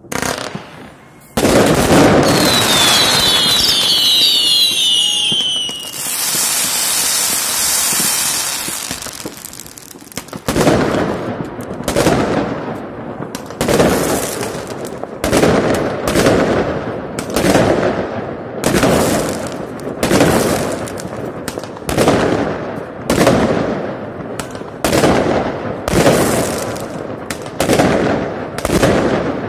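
New Year fireworks going off at close range: a sudden loud blast and several whistles falling in pitch, then a few seconds of loud hissing. After that a steady run of aerial shells bursting, about one bang a second.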